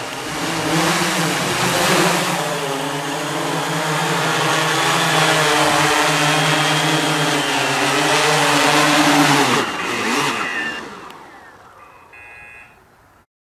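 Electric motors and propellers of a MikroKopter multicopter humming steadily, with a wavering pitch, then spinning down after about ten seconds as the motors are switched off. A few short electronic beeps come near the end.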